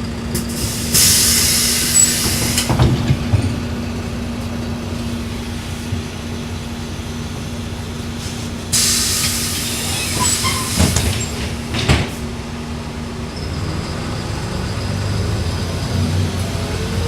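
City bus heard from inside the cabin with its engine idling steadily. There are two loud bursts of hiss, one about a second in and a longer one near the middle, with a few knocks. Near the end the engine note rises slowly as the bus pulls away.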